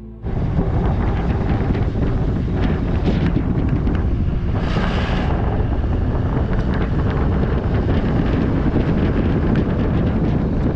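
Wind buffeting the microphone over the steady low rumble of a vehicle on the road, with a short hissing swell about five seconds in.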